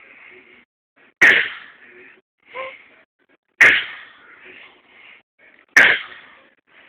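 Six-month-old baby doing deliberate fake coughs: three short, sharp coughs a little over two seconds apart, with breathy sounds between them and a short voiced sound after the first cough.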